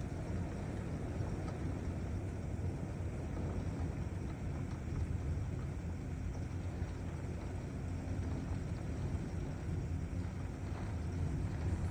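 Steady low rumbling of a thunderstorm, an even noise with no sharp thunderclaps.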